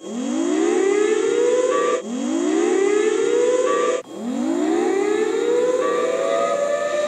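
Civil-defense style siren winding up in a rising wail three times, the last rise levelling off into a held tone; it serves as the evacuation alarm for the pretend earthquake.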